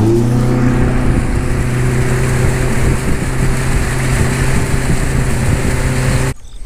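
A bass boat's outboard motor running steadily at speed under way, its hum rising slightly in pitch at the start, with wind and water rushing past. It cuts off abruptly near the end.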